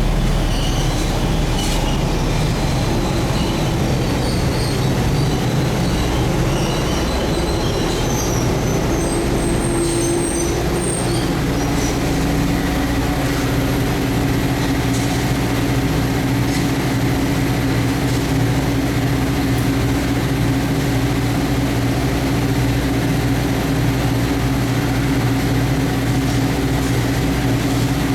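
Airliner jet engines running loud and steady, with a low engine tone that steps up slightly in pitch about eleven seconds in. Faint high chirps are heard in the first ten seconds.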